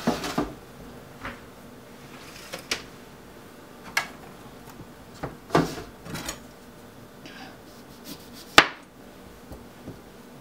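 Scattered knocks, clicks and clatters of kitchen handling: a dehydrator tray pushed into the dehydrator at the start, then a chef's knife and lemons moved about on a plastic cutting board. The sharpest knock comes about three quarters of the way through.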